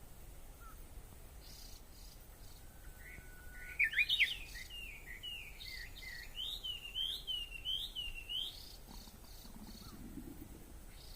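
Wild Japanese bush warbler singing: a long thin steady whistle, a quick rising flourish, then about four seconds of rapid repeated rising-and-falling notes.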